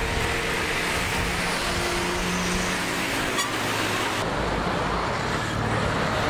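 Steady road traffic noise from passing motor vehicles: engines and tyres on a busy street, with the low hum of a nearby engine.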